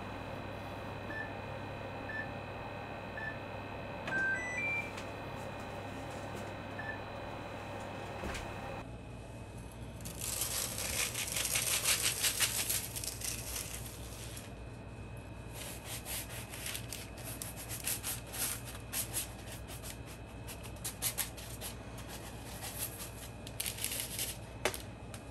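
A Hitachi microwave oven's control panel beeping at button presses: six short beeps over the first seven seconds, a couple of them higher-pitched. About nine seconds in, cocoa nibs pour from a glass bowl onto a parchment-lined baking tray with a dry, rattling hiss for several seconds, then rattle in short scattered bursts as they are spread across the tray.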